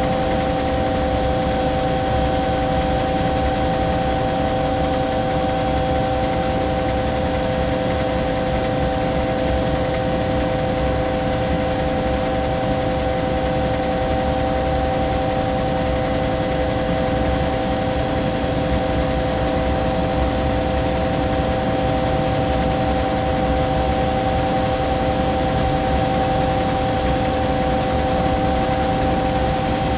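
Bell 212 twin-turboshaft helicopter in cruise flight, heard from inside the cabin: a steady, unchanging drone of engine and rotor rumble with a couple of constant whining tones over it.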